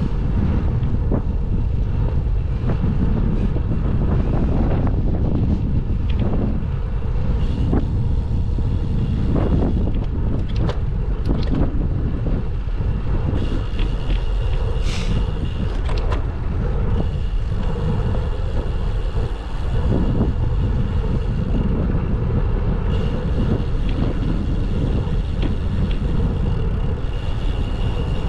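Wind rumble on the microphone mixed with tyre and road noise from a bicycle riding along a road, steady throughout. A faint thin high tone comes and goes in the second half.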